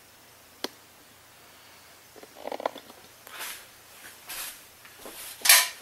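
A single sharp click, then short crinkly rustles roughly once a second, the last the loudest: handling and movement noise while double-stick tape is being hung around a room taped off for ceiling spraying.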